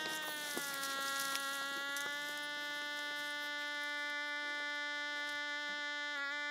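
A sustained, buzzy electronic tone held at one pitch, with a slight upward bend at the start and a brief wobble near the end: a comic background-score drone laid over the scene.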